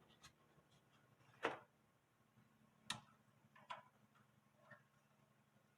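Near silence, broken by about five faint, irregular clicks and taps.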